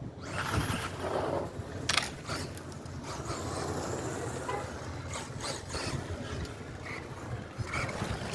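Traxxas Bandit VXL RC car with its Velineon brushless motor driving in short bursts, tyres and drivetrain rushing over the ground, loudest about a second in, with a sharp knock about two seconds in.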